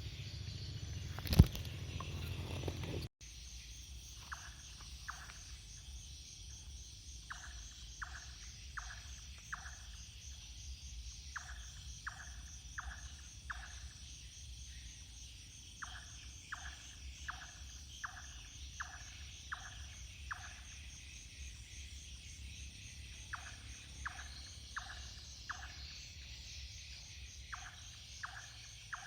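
Night animal calls: short notes sliding downward, repeated in runs of three to six with pauses between runs, over a steady high insect chorus. A single sharp knock sounds about a second in.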